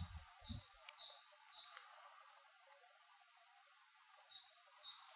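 A small songbird singing faintly, a high note alternating with a slightly lower one repeated several times, in one phrase at the start and another about four seconds in. A few low thumps come in the first second.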